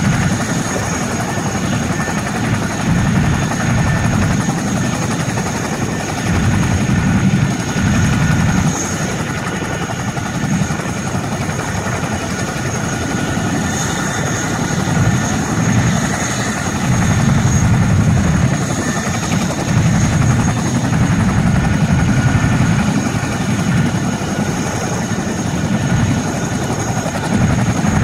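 CH-47 Chinook tandem-rotor helicopters running on the ground: a continuous low rotor thrum that swells and fades every couple of seconds, over a steady high turbine whine.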